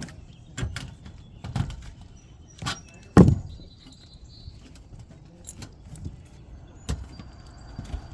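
Irregular knocks and clanks of metal on copper roofing as the panel clips are closed, about five strikes, the loudest about three seconds in, with a faint metallic ring after some of them.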